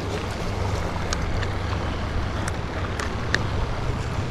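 Steady low drone of a passing motorboat's engine, with a few faint clicks over it.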